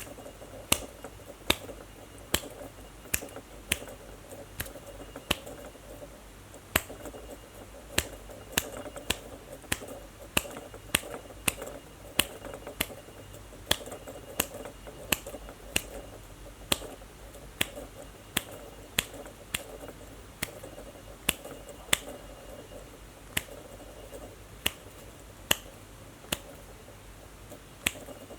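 Fingers snapping over and over, sharp dry snaps at a steady pace of a little more than one a second, with a faint steady hum of room noise behind them.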